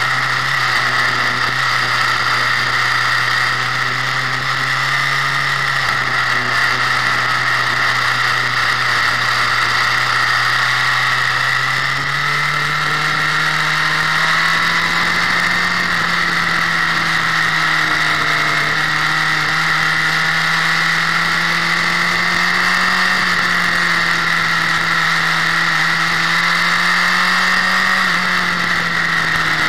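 Motorcycle engine running at steady speed. Its pitch steps up about twelve seconds in and then wavers slightly.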